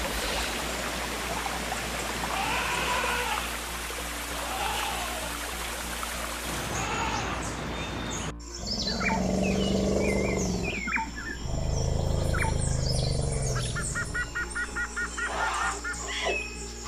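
Cartoon soundtrack: a steady rushing noise with music for about eight seconds, then a sudden cut. After the cut come two low animal growls, with birds chirping and a short trill near the end.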